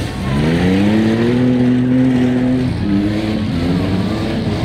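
Demolition derby vehicle's engine revving: its pitch climbs over about a second and a half, holds high for about a second, then drops back to a lower steady run, with other engines running beneath it.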